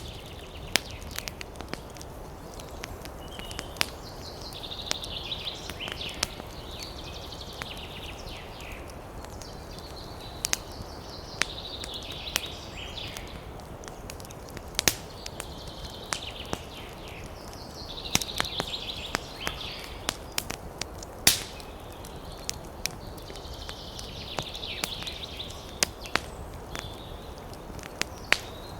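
Campfire crackling, with sharp pops of burning wood scattered irregularly over a steady low noise and one louder pop about two-thirds of the way through. Birds twitter in short high-pitched spells every few seconds.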